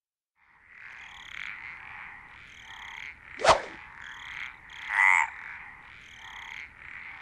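Frogs croaking in repeated bouts, with a sharp crack about halfway through and one louder croak shortly after.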